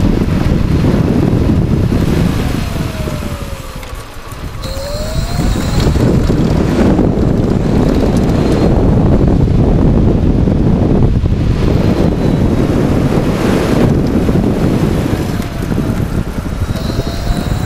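Heavy wind buffeting on the microphone of a fast-moving electric bike. The motor's whine falls in pitch as the bike slows about three seconds in, then rises as it speeds up again. The same fall and rise comes again near the end.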